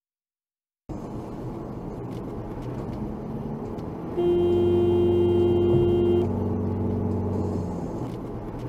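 Car driving at speed, engine and road noise heard from inside the cabin, starting about a second in; about four seconds in, a car horn sounds in one steady blast lasting about two seconds, loud over the driving noise.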